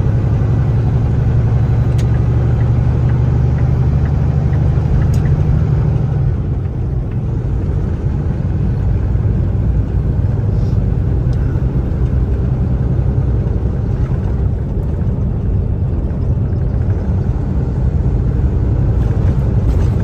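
Diesel engine drone and road noise heard inside the cab of a Kenworth T680 semi-truck at highway speed: a steady low hum with tyre noise. The engine's hum drops lower and a little quieter about six seconds in.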